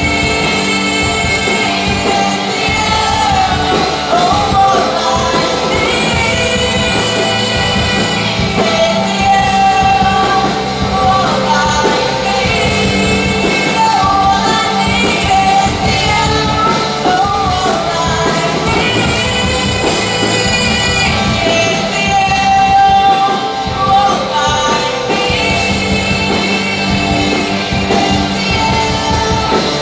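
Live worship band playing a rock-style song with female vocalists singing the melody over acoustic and electric guitars.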